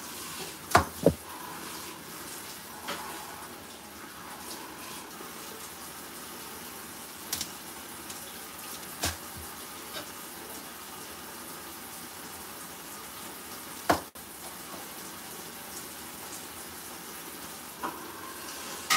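A kitchen knife knocking on a plastic cutting board a few separate times while slicing green chillies and coriander, the loudest knock about 14 seconds in, over a steady hiss.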